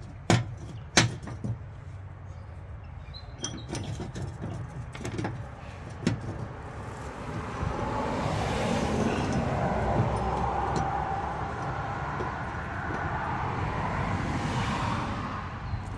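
A few light metal clicks as bolts are started by hand into a mower-deck spindle housing. After that a broad rushing noise swells, holds for about eight seconds, then fades, louder than the clicks.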